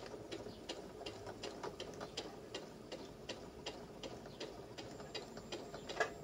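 Electric sewing machine stitching slowly through ribbon: a steady motor hum with the needle mechanism ticking about three times a second.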